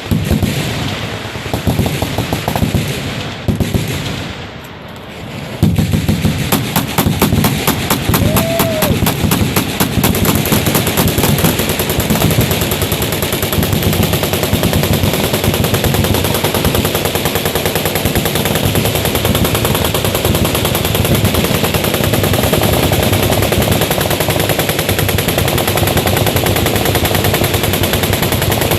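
Machine guns firing long automatic bursts that run together into a continuous rattle, with a short lull about four to five seconds in before the firing picks up again.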